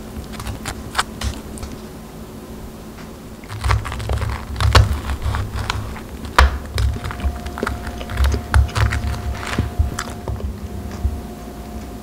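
Cutlery on crisp toast on a wooden board: a spoon scraping jam across the toasted crust, then, from about three and a half seconds in, a knife and fork cutting through it with a run of sharp crunches and dull knocks on the board.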